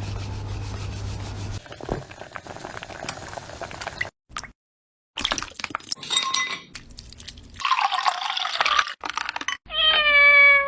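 A domestic cat meowing, with one long, loud meow near the end.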